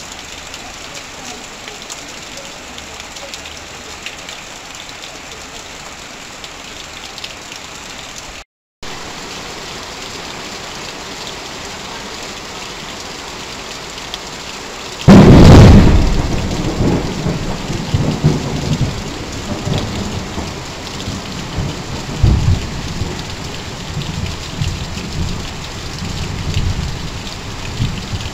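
Heavy rain falling steadily on corrugated tin sheets and foliage, with water streaming off a roof edge. The sound cuts out briefly about a third of the way in. About halfway through a sudden loud thunderclap breaks in and rolls on as rumbling through the rest.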